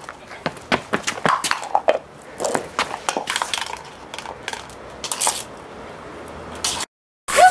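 A Samoyed puppy playing with a hard plastic cup on stone paving: irregular clatters, knocks and scrapes of the cup against the tiles, mixed with clicks of claws, busiest in the first five seconds. The sound cuts out briefly near the end.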